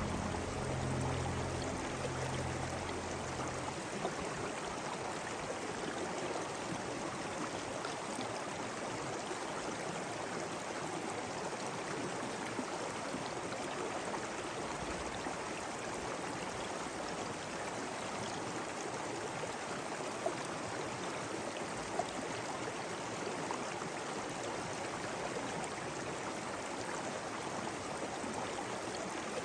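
Steady rushing and babbling of a stream, with the last of soft music fading out during the first few seconds.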